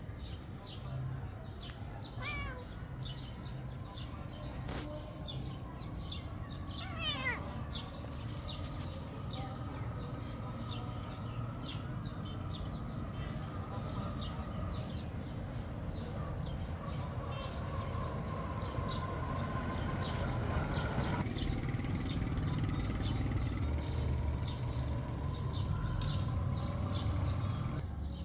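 A cat meowing a few times over steady outdoor background noise, with birds chirping.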